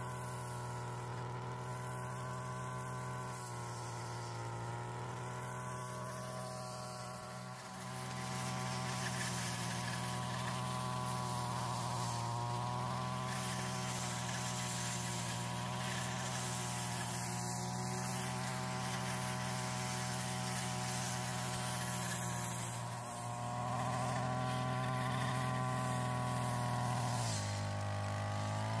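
Petrol brush cutter running at steady high revs, a continuous buzzing drone whose pitch drops briefly near the end before rising again.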